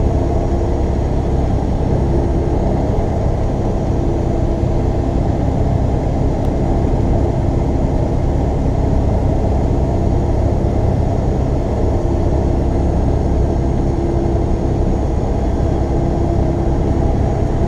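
Steady rumble of a truck's engine and tyres at highway cruising speed, heard from inside the cab, with a faint steady hum over it.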